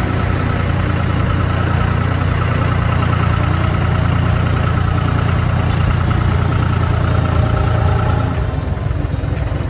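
Tractor engine running steadily while driving, towing a loaded feed wagon. A steady high whine rides over the engine and fades out about eight seconds in.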